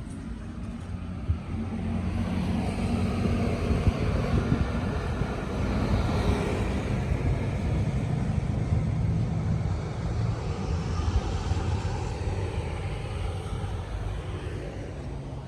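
Engine noise from a passing vehicle or aircraft: a steady low rumble that swells after a couple of seconds and fades again after about ten.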